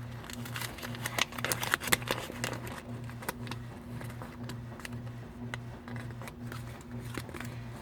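Paper rustling and small clicks as a rubber-banded bundle of folded instructions is unbanded and unfolded by hand. A low hum pulsing about twice a second runs underneath.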